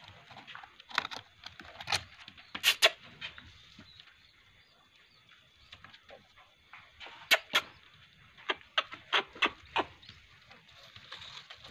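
Sharp clicks and knocks: a few scattered ones in the first three seconds, then a quicker run of about eight between about seven and ten seconds in, over a faint background.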